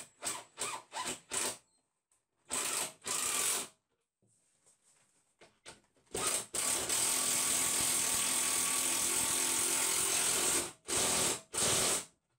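Cordless drill-driver driving stainless steel bolts through a wooden rail into threaded inserts, run in short trigger bursts at first, then one long steady run of about five seconds, then two short bursts near the end.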